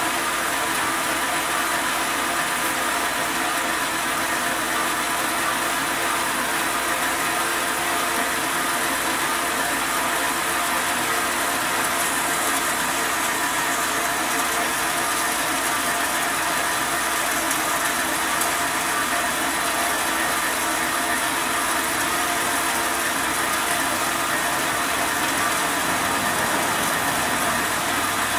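Wen 5-inch metal-cutting band saw running steadily, its blade cutting through metal stock under light hand pressure.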